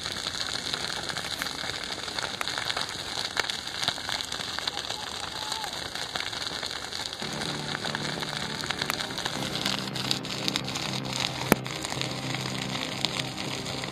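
Dense, steady crackling hiss that starts abruptly, scattered with sharp ticks. Music with held notes comes in underneath about halfway through.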